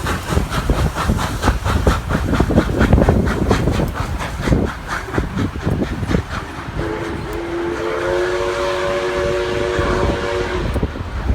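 Steam locomotive 5917, a NSWGR 59 class 2-8-2, working with an even beat of exhaust chuffs, about four a second. About seven seconds in, a long multi-note train whistle sounds for some three and a half seconds, its lower notes joined by higher ones a second later.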